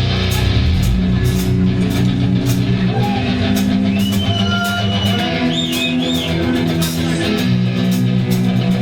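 Live rock band playing: sustained electric guitar and bass notes over a drum kit with steady cymbal strokes, with a few gliding high notes about halfway through.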